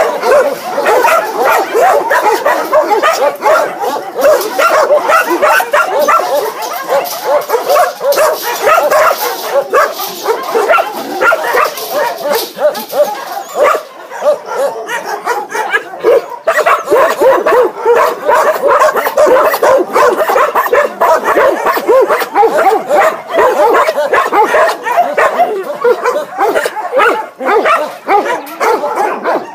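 Many dogs barking at once in a loud, unbroken chorus of overlapping barks.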